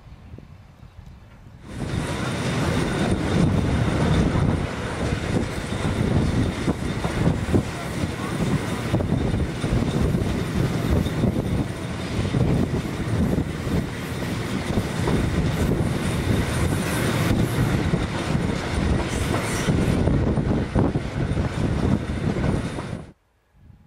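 Hamburg S-Bahn electric train running past close by, its wheels rumbling on the rails with a thin high whine over the top. It starts suddenly about two seconds in and cuts off abruptly just before the end.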